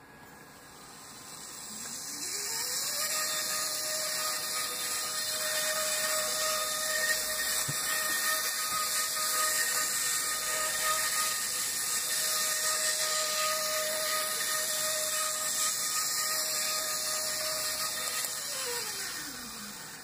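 Original small 3 V motor and gearing of a Busch H0f Gmeinder model locomotive, driven by a DH06A DCC decoder, running around the track. A whine rises in pitch over about a second as it speeds up, holds steady with a hiss above it, then falls away near the end as it slows.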